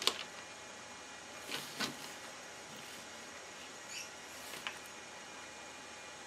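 A metal sculpting tool and fingers working soft soap dough: a sharp click as it begins, then a few brief light scrapes and taps over a steady faint hiss.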